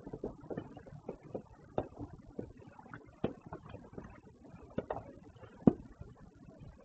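Distant fireworks going off: a string of irregular sharp pops and bangs, with one much louder bang about two-thirds of the way through.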